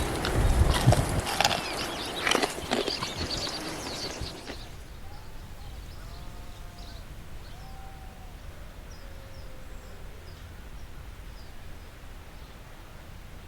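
Busy clattering and knocking for about four seconds that cuts off suddenly, then quiet outdoor air with faint, low hooting bird calls repeating every second or so.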